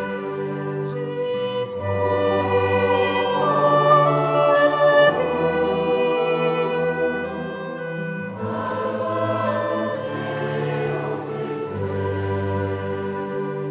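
Choir singing a slow, harmonized Taizé chant, with long held chords over a low bass line that shifts every second or two.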